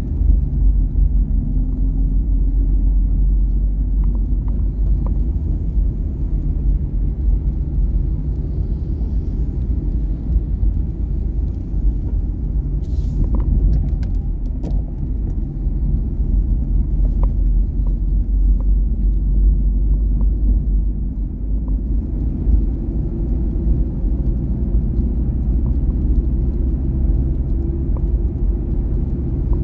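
Steady low rumble of engine and road noise heard inside the cabin of a moving Wuling Confero, with a few faint ticks.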